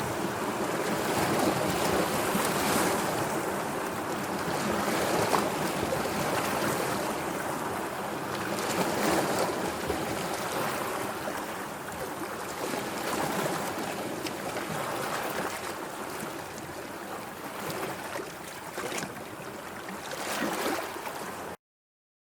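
Sea waves washing ashore: a steady rush of surf that swells and ebbs every few seconds, then cuts off abruptly near the end.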